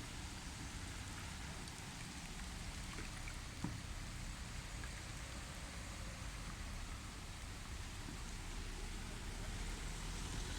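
Steady rain falling, an even hiss with scattered single drops, one sharper drop hitting something about three and a half seconds in.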